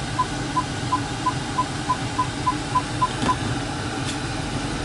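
BMW 550i's parking-distance warning beeping: short high beeps coming faster and faster, then stopping a little over three seconds in, a sign the car is closing on an obstacle while reversing. A low steady hum runs underneath.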